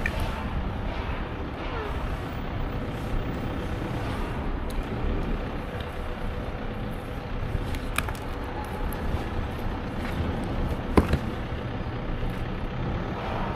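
Strong wind buffeting the microphone in a steady low rumble, with a faint click about eight seconds in and a sharp knock, the loudest sound, about eleven seconds in.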